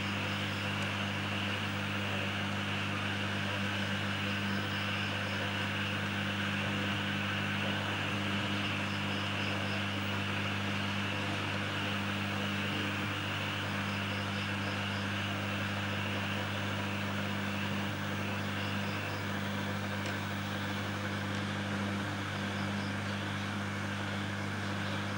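Steady low electrical hum with an even hiss above it.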